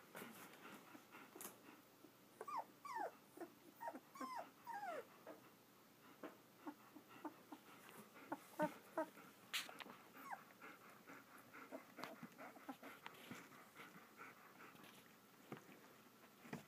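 Two-week-old German Shepherd puppies whimpering faintly: a run of short, falling squeaks a few seconds in and a few more around the middle, with scattered soft clicks.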